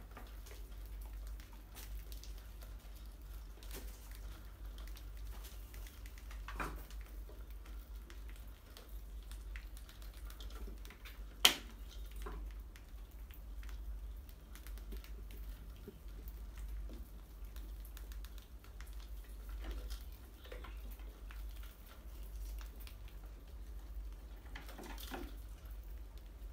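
Rodents scrabbling on tile, bricks and glass jars: scattered light scratching and claw clicks, with one sharp knock about eleven seconds in, over a low steady hum.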